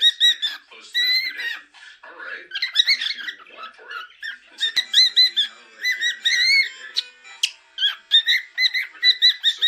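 Cockatiel chirping and whistling in quick runs of short, high notes, with pauses between the runs.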